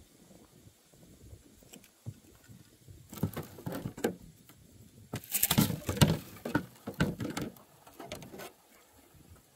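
Irregular knocks and rattles of fishing gear being handled in a small boat, loudest about halfway through and stopping shortly before the end.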